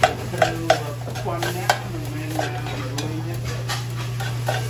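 Metal utensils clinking against pots and dishes while food is stirred and served: a few sharp clinks in the first two seconds and another near the end, over a steady low hum and background chatter.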